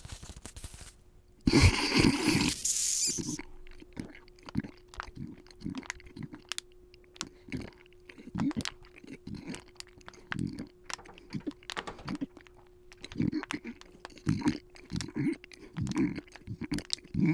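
Monster sound effects: a loud, harsh noise about a second and a half in that lasts about two seconds, then irregular clicks and low thumps over a faint steady hum.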